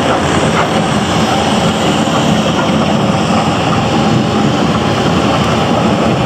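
Bobcat T650 compact track loader's diesel engine running steadily and loudly.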